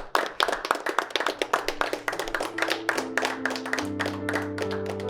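Audience applause, dense clapping that thins out, while slow sustained keyboard chords of background music come in about halfway through and grow louder.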